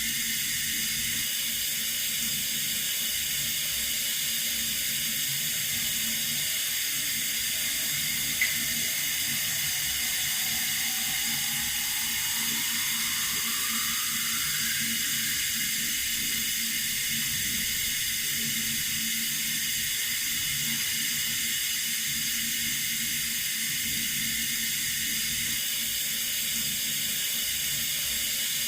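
Water running steadily from a tap, an even hiss, with a single short click about eight seconds in and a faint tone slowly rising in pitch midway.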